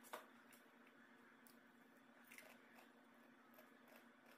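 Faint sounds of eating crispy fried chicken: a sharp crunch just after the start, then scattered soft clicks of chewing and handling the food, over a steady low hum.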